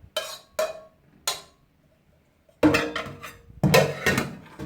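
Kitchen utensil and dishware clinking and clattering while pre-cooked potatoes go into a bowl: three short knocks in the first second and a half, then a louder stretch of clatter about halfway through, with a brief ringing note.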